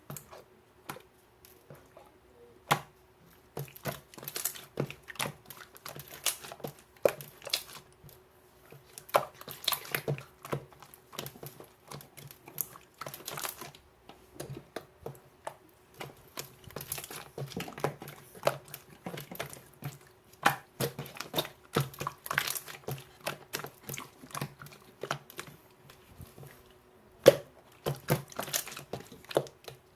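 Slime being squeezed, stretched and poked by hand, giving irregular sticky clicks, pops and crackles.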